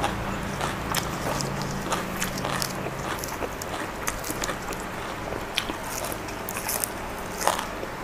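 Close-miked chewing of spicy pork salad and raw herbs, with many short wet mouth clicks and small crunches.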